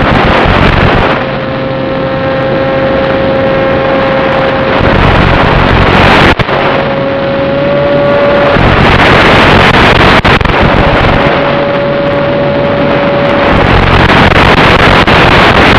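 Onboard audio of a small electric FPV plane in flight: the Turnigy 2822 brushless motor and 7060 propeller running with a held tone under heavy wind rush. The tone drops out several times, leaving loud hiss and a few sharp clicks, as the 5.8 GHz video link breaks up at long range.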